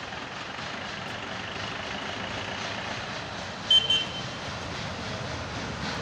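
Steady engine noise from road traffic, with a brief high-pitched horn beep about four seconds in.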